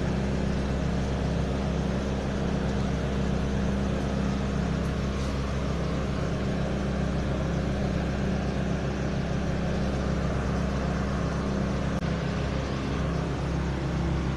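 A steady, unchanging engine-like drone with a low hum.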